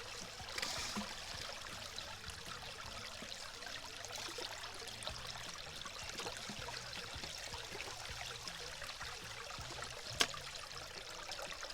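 Steady rushing of flowing creek water, with one sharp tap about ten seconds in.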